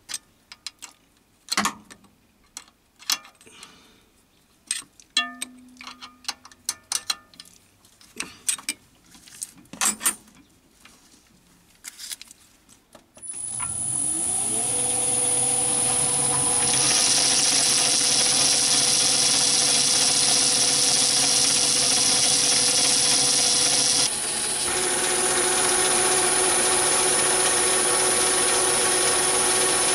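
Metal clicks and knocks as a spanner locks up the change-gear arm on a Myford ML7 lathe. About halfway through, the lathe starts, spinning up within a second and then running steadily with a high whine, its gear train turning through the new fine-feed tumbler gear. A few seconds later a hiss joins in, and later still the note shifts and drops slightly.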